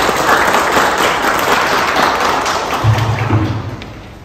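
A room of people applauding, the clapping dying away near the end.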